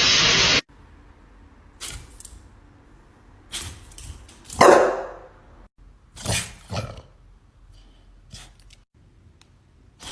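A dog barking several times in short, separate barks; the loudest, about halfway through, drops in pitch. A loud steady hiss cuts off about half a second in.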